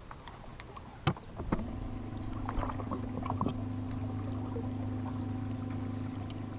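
A bass boat's electric trolling motor switched on about a second and a half in, running with a steady hum, after a sharp click just before it starts.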